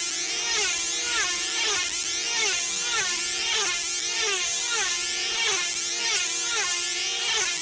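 Several F2C team-racing control-line model aircraft with small 2.5 cc diesel engines running flat out around the circle. Their high-pitched buzz rises and falls over and over as each model sweeps past, overlapping into a continuous whine.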